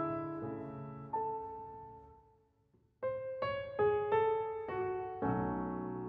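Background piano music: slow single notes and chords, each ringing and fading, with a short hush about two and a half seconds in before the playing resumes.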